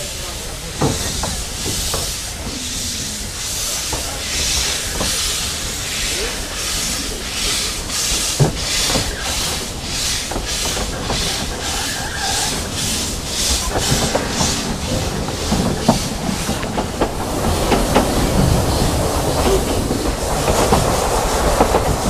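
Narrow-gauge steam locomotive pulling away, heard from an open carriage behind it. Its exhaust chuffs and steam hiss come faster and faster. From about two-thirds of the way through, they give way to a louder rumble and the clickety-clack of the carriage wheels on the rail joints as the train gathers speed.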